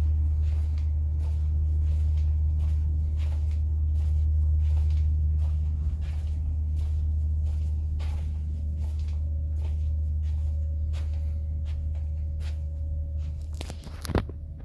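Footsteps walking along a carpeted corridor, about two steps a second, over a steady low hum. A single louder sharp click comes near the end.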